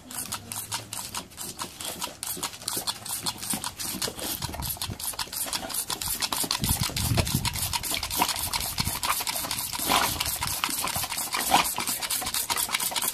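Boxer dog snapping its jaws at a stream of water from a squirt gun: a fast, even run of clacks with water spatter, about five or six a second, growing a little louder after the middle.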